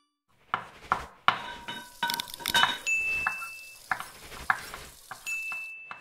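Kitchen sound effects: dishes, pots and cutlery clinking and knocking in a quick, irregular series of sharp hits, some ringing briefly. A short high steady tone sounds twice, about three seconds in and again near the end.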